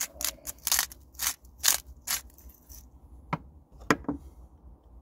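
Hand-twisted salt grinder full of pink Himalayan salt, crunching as crystals are ground in about five strokes, roughly two a second. A couple of single sharp clicks follow later.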